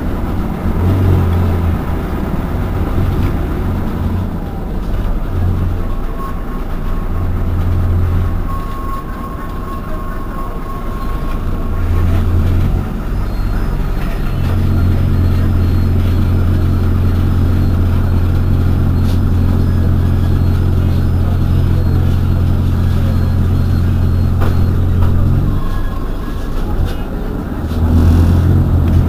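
Irisbus Citelis 12 city bus's rear-mounted engine idling while stationary, a steady low hum that swells and eases several times and holds strongest for about ten seconds in the middle.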